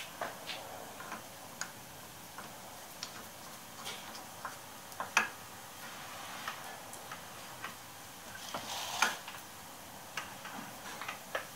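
Irregular clicks and metallic clinks of steel tooling being handled at a lathe's chuck and toolpost, with two louder knocks about five and nine seconds in.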